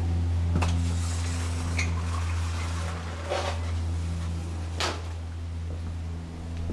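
A steady low hum with a few light knocks and clicks scattered through it, about four in all.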